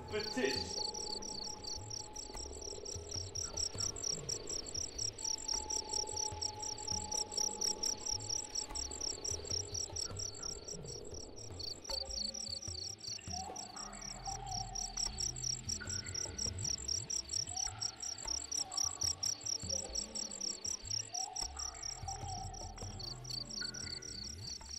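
Crickets chirping in a fast, continuous trill, a steady night-insect chorus. Fainter low sounds come and go beneath it.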